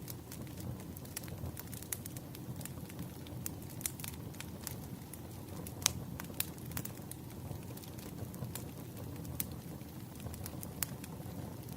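Firewood burning: a steady low rumble of flames under irregular sharp crackles and pops, the loudest pop about six seconds in.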